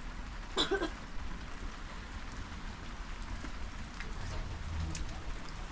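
Steady rain falling, with scattered drips ticking throughout. A short pitched sound stands out about half a second in.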